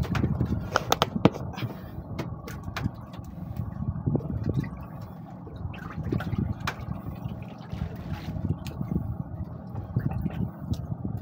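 Water sloshing and slapping against a small wooden outrigger boat, with scattered clicks and knocks as a fishing net and line are hauled in by hand.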